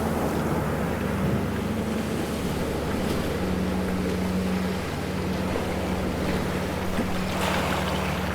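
Ocean waves washing, with a brief louder surge of water near the end. A steady low hum, like a motor's, runs beneath the waves.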